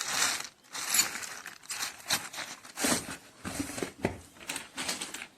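Plastic packaging crinkling and rustling in irregular bursts as packed items are handled.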